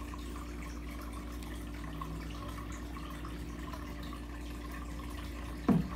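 Steady running water in a turtle tank with a constant low hum, and a sudden thump near the end.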